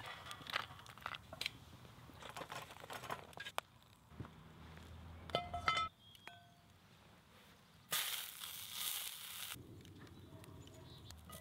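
Chestnuts clicking and rattling on a perforated steel grill pan over hot embers, with a short metallic ring near the middle. About eight seconds in there is a sudden loud sizzle as squash rings go into a hot oiled cast-iron skillet, which then settles to a quieter fry.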